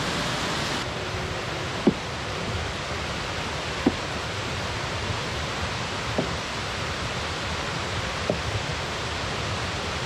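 A rocky mountain stream rushing steadily. Over it come four light knocks about two seconds apart.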